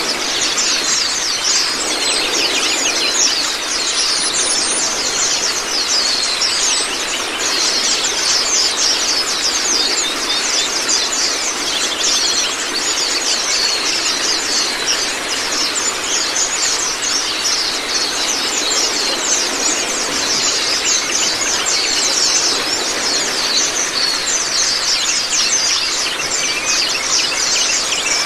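White-eyes (Zosterops) singing in dense, rapid, high-pitched overlapping twitters, over a steady rush of running water.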